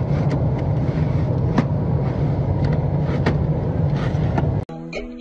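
Steady low hum of an airliner cabin on the ground, heard from a window seat, with a few sharp clicks as the plastic window shade is slid up and down. Half a second before the end the hum cuts off abruptly and music begins.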